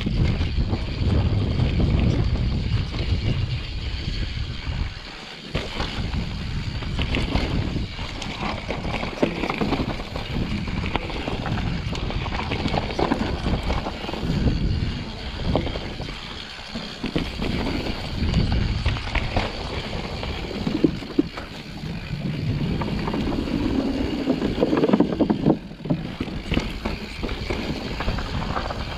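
Mountain bike descending a rough enduro trail: wind buffeting the microphone and tyres rolling over dirt and rock, with frequent irregular knocks and rattles from the bike.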